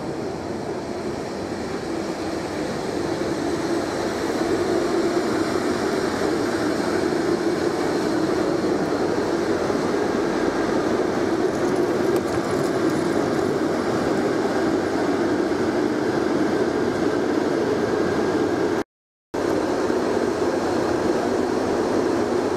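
SJ X2000 high-speed electric train moving along the platform, its running rumble growing over the first few seconds and then holding steady as the carriages pass. The sound drops out for a split second near the end.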